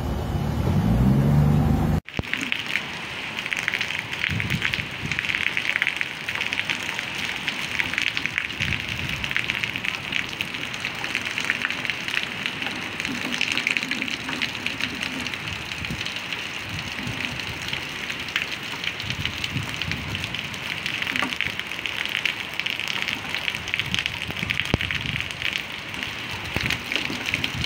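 Heavy rain pouring steadily, a dense even hiss with fine crackle of drops. Before it, a vehicle engine rises in pitch for about two seconds and cuts off abruptly.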